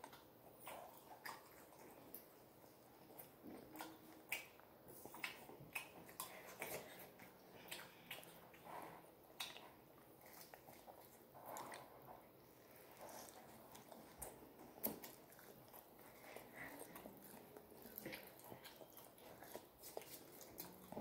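Faint, close-up chewing and biting on a burger, with soft irregular mouth clicks and smacks.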